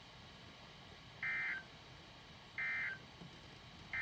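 Emergency Alert System end-of-message signal: three short bursts of buzzy digital data tones about a second apart, marking the end of the broadcast alert.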